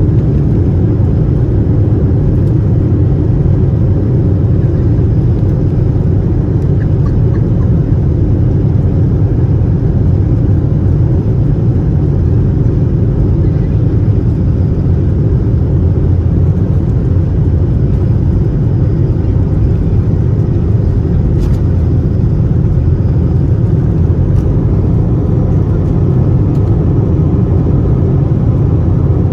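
Steady, loud rumble of an Airbus A321-231's IAE V2500 engines and airflow, heard inside the passenger cabin, holding even throughout.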